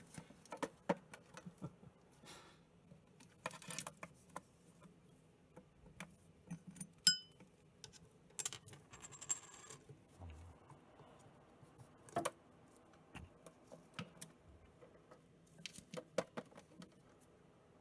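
Small hard toys clicking, clattering and rattling in irregular bursts as a cockatiel knocks them about.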